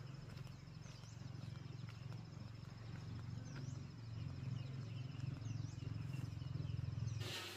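Outdoor rural ambience: a steady high insect-like drone with a few short chirps over a low rumble. It changes abruptly shortly before the end.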